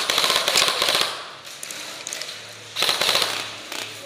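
Airsoft rifles firing on full auto: a rapid rattling burst that stops about a second in, scattered single clicks, then a second short burst about three seconds in.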